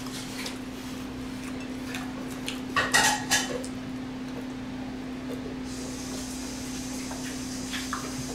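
A few clinks of cutlery against a dish during a meal, clustered about three seconds in, over a steady low hum.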